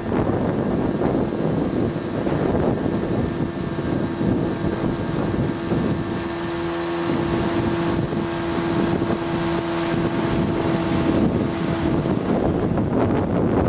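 Boat motor running steadily under way, with a steady hum that drops out about twelve seconds in, and wind buffeting the microphone.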